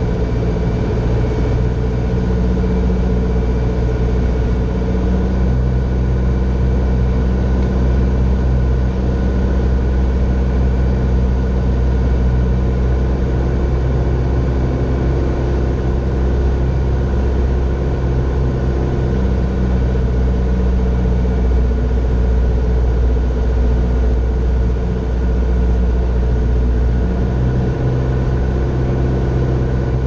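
Single-engine Grumman Tiger in flight, heard from inside the cabin: its 180 hp four-cylinder Lycoming engine and propeller droning steadily.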